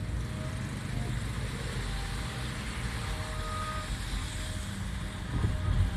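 Car driving, heard from inside the cabin: a steady low rumble of engine and road, swelling louder briefly near the end.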